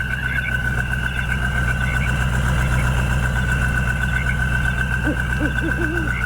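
An engine running steadily at idle, with a constant high-pitched whine over it.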